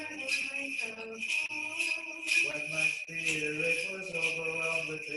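Small bells on a swung censer jingling about twice a second, over a voice chanting in slow, held notes.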